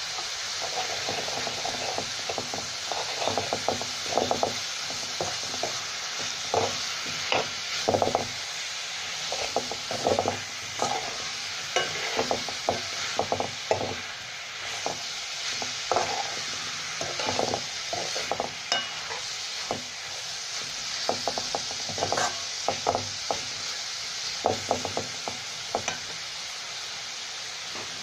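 Chicken, onions and chilli flakes frying in a wok with a steady sizzle, while a metal slotted spoon stirs and scrapes against the pan in irregular clusters of strokes.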